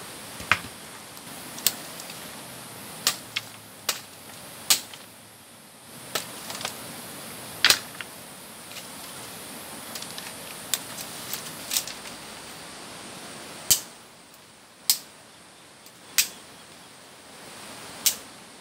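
Dry sticks being broken up for firewood: sharp, irregular cracks, about one every second, over a steady background hiss.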